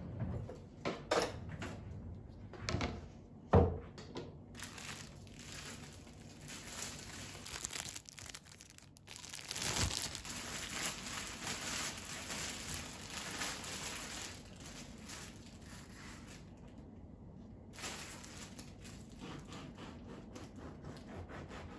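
A few knocks, the loudest about three and a half seconds in, then a thin clear plastic bread bag crinkling for several seconds as it is worked off a whole loaf by hand.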